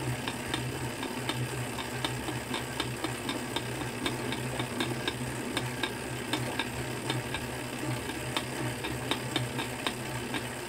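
Tacx direct-drive trainer being pedalled, its flywheel humming steadily under a rapid, irregular series of sharp cracking clicks from the trainer axle. The cracking is a sign of a lack of grease on the spacer or cassette body.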